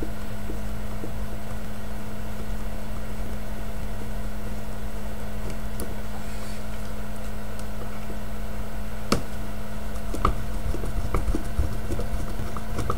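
Steady electrical hum over a low drone, with a few light clicks and taps beginning about nine seconds in, the first one the sharpest.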